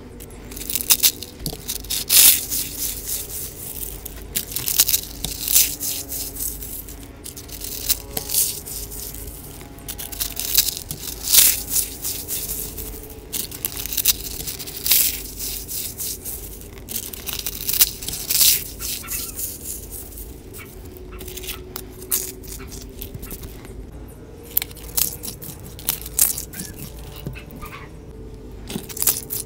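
Dried rose buds and dried leaves being crushed and crumbled in the hands, giving an irregular run of crisp crackling and crunching.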